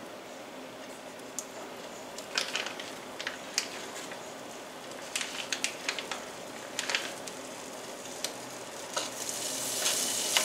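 Butter sizzling as it melts in a stainless steel skillet of chicken drippings, with scattered light clicks and scrapes of a wooden spatula. The sizzle grows louder near the end.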